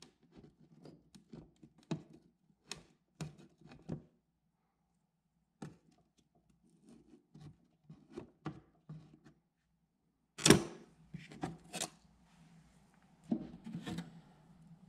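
Small hand tool knocking and prying at the wooden frame around a textured window panel: a run of light knocks and clicks, a pause, more taps, and one louder knock about ten seconds in. Near the end the loosened panel rattles against the wood as it is lifted out.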